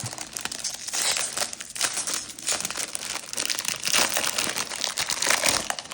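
Plastic wrapping crinkling and tearing as a box of trading-card packs is opened, in an irregular run of crackles.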